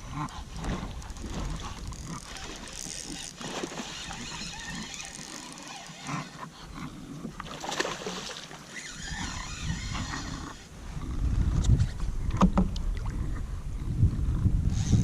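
Kayak on the water: scattered knocks and rustles against the hull, with a stronger low rumble coming in about eleven seconds in.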